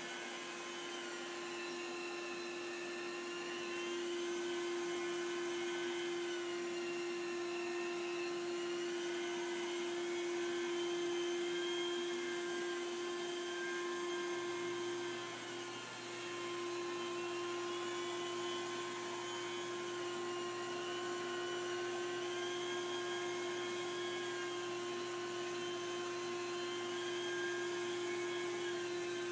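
Rotary carpet-cleaning extractor running as it is worked over carpet: a steady machine whine and hum with the suction of its vacuum hose, some higher tones wavering slowly in pitch.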